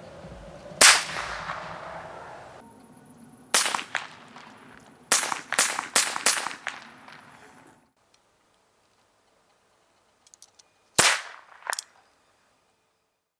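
.22 blank revolver firing 6mm blanks: a shot about a second in, another a few seconds later, then four shots in quick succession. After a pause, two more sharp reports come near the end.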